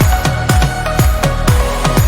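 Electronic dance music with a steady, fast kick-drum beat and sustained synth tones.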